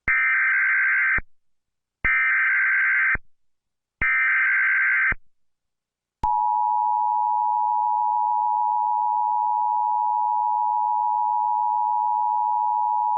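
Emergency Alert System tones: three short screeching bursts of SAME header data, each about a second long and a second apart. After a brief pause, about six seconds in, the long, steady two-tone EAS attention signal (853 and 960 Hz) begins.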